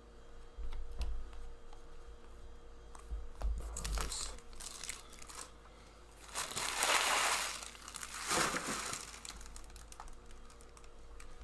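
Trading cards handled and shuffled with light flicking clicks, then plastic wrapping crinkling in two louder bursts, the louder one about two thirds of the way through.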